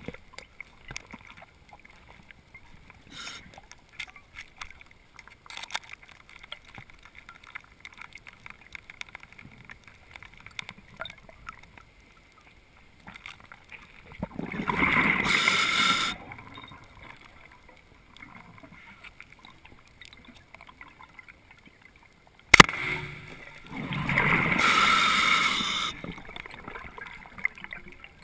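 Underwater sound: a faint steady crackle, two bubbling bursts of about two seconds each from a diver's exhaled breath, and a single sharp crack about two-thirds of the way through as a speargun fires.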